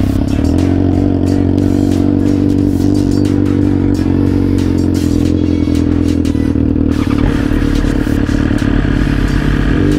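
Motorcycle engine running at a steady speed while riding, holding one even pitch, with a rattling, scraping noise over it.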